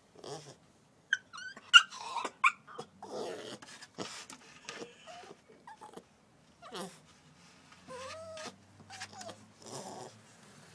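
Staffordshire bull terrier puppy crying in a string of short, broken cries, some high and wavering up and down in pitch: the cry of a puppy shut outside and wanting to be let back in.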